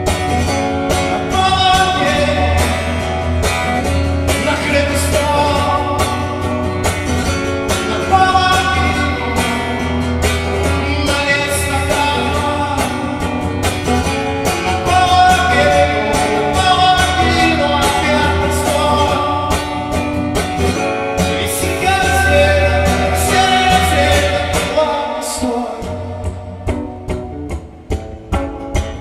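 A live song: strummed acoustic guitar with a voice singing a wordless melody over it. The playing thins out and gets quieter a few seconds before the end.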